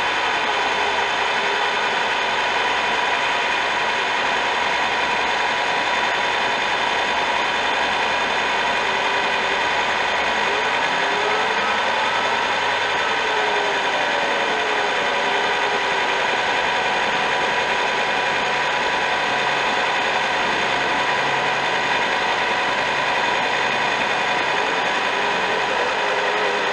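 Old milling machine running steadily while its cutter mills a steel part, a constant machine drone with a few faint rising and falling whistles.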